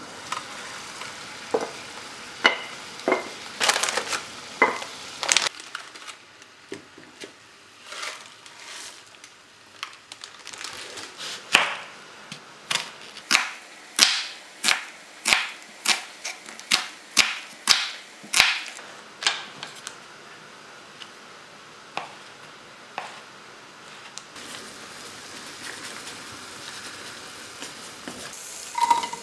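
Kitchen handling sounds: a few clinks and knocks as a stainless-steel lid is set on a pan. About a third of the way in comes the main sound, a chef's knife slicing an onion on a wooden cutting board: about a dozen evenly spaced chops.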